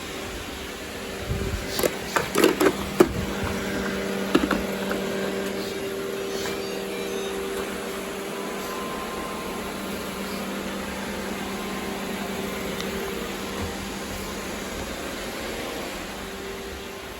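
Robot vacuum running with a steady motor hum, with a quick run of sharp knocks and clatters about two seconds in.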